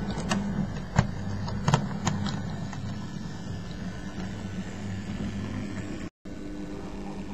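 OO gauge model Class 14 diesel shunter running along the track, its small electric motor giving a steady hum while the wheels click sharply over rail joints and points during the first couple of seconds.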